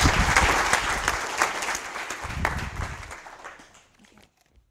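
Audience applauding, the clapping dying away after about three seconds.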